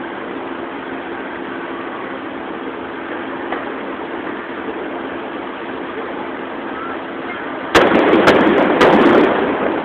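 Steady hum of car engines idling in a traffic jam, then about eight seconds in a burst of aerial firework shells: one loud boom followed by several sharp cracks over about a second and a half.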